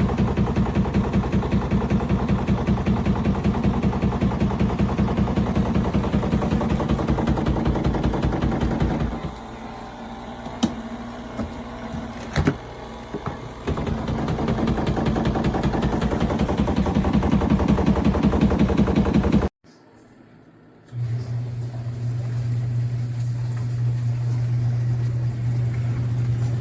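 ROVSUN twin-tub portable washing machine running: a loud motor hum with a fast, even rattle that eases off for a few seconds about nine seconds in, then comes back. It cuts off suddenly, and a steady lower hum follows.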